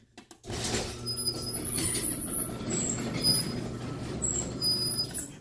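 Sectional garage door rising, rattling and rumbling in its tracks with high squeaks, likely from the rollers. It starts about half a second in and stops just before the end.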